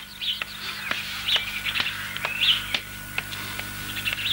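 Birds chirping in short calls, with footsteps on brick paving about twice a second, over a faint steady hum.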